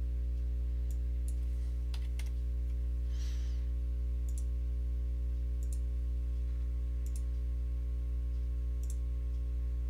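Computer mouse clicking, a handful of separate single clicks spread out with pauses, over a steady low electrical hum.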